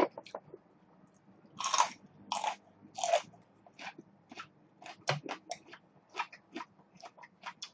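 Close-miked chewing of crunchy food: three loud crunches early, then a run of small, quick chewing clicks.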